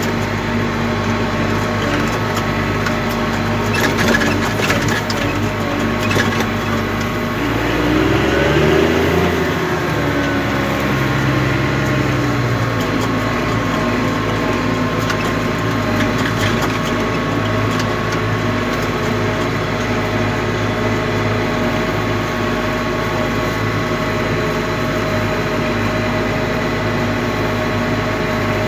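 Case 125 tractor engine running steadily under load while pulling a 44-disc harrow, with knocks and rattles from the harrow. About eight seconds in, the engine note wavers for a few seconds before settling again.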